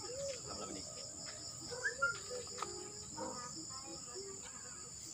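Night insects, crickets, trilling in a steady, continuous high-pitched chorus.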